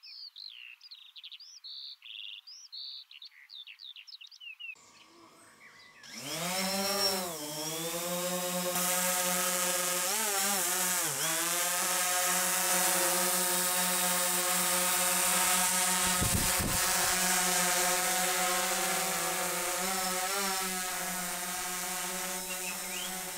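Small birds chirping, then about six seconds in a quadcopter drone's propellers spin up with a rising whine and settle into a steady buzzing hover, the pitch wobbling briefly a few seconds later.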